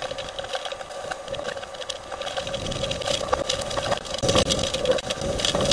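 Hurricane wind and rain heard from inside a vehicle over a steady mechanical hum. The wind swells louder about three seconds in, with scattered sharp taps on the body and glass.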